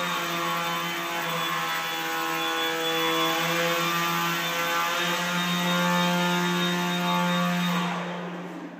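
Small spherical caged drone hovering, its electric rotor giving a steady pitched hum. Near the end the hum winds down, falling in pitch and fading as the rotor spins down.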